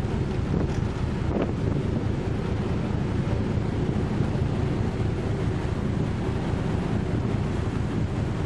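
Wind buffeting the microphone over the steady rumble of the icebreaker Aurora under way, with water churning through broken drift ice along the hull and wake.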